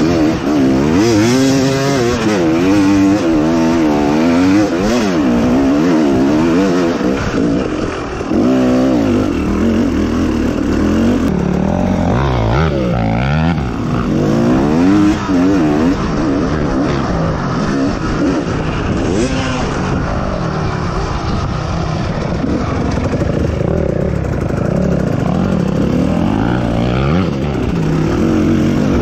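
Off-road vehicle engine running hard under a trail rider, its pitch rising and falling constantly with throttle and gear changes, then holding steadier in the second half.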